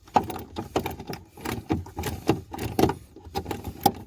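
Irregular clanking, rattling and knocking of metal parts and tools being handled, several knocks a second.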